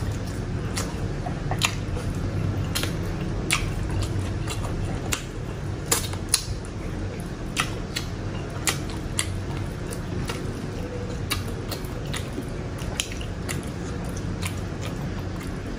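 Close-miked eating of grilled chicken with the hands: chewing, wet mouth clicks and smacks, and meat being pulled apart, in irregular sharp clicks over a steady low hum.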